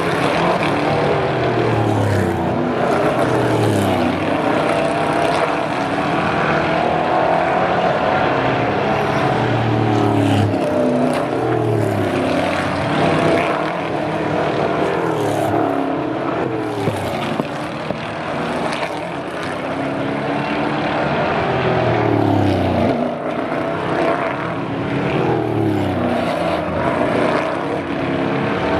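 Several NASCAR Euro Series V8 stock cars brake into a chicane and accelerate out one after another. Their engine notes fall and rise again and again, overlapping as one car follows another.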